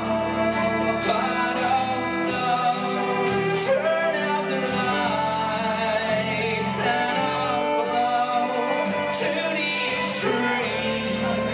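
Fiddle and strummed acoustic guitar playing a folk tune together live, the fiddle carrying the melody over the guitar.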